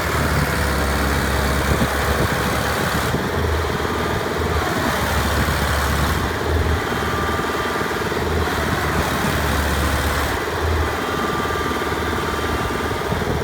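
Diesel engine of farm machinery in a muddy paddy field running steadily, its low rumble swelling and easing every few seconds, with a faint whine that comes and goes.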